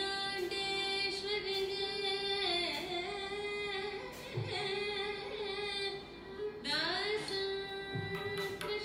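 Carnatic keertanam in raga Revathi, adi talam: a singer holds long notes with ornamented pitch glides, over accompaniment with a few drum strokes.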